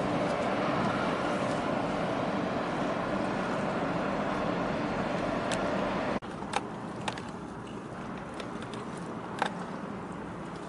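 Steady noise of a boat's engine and water rushing past, heard on board a moving harbour boat. About six seconds in it cuts off abruptly to a quieter steady background with a few sharp clicks.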